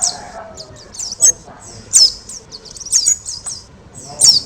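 A kemade songbird singing loudly and persistently: sharp, high, downward-sweeping chirps about once a second, with quick twittering between them.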